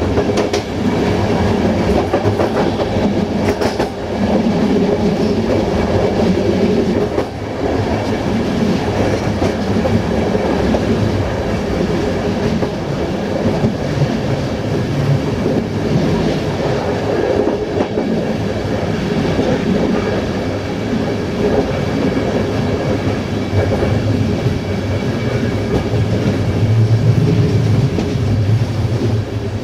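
Diesel-hauled passenger train running steadily along the line: the GM-engined locomotive's engine drones on steady low tones while the wheels clatter over the track. The engine gets louder near the end.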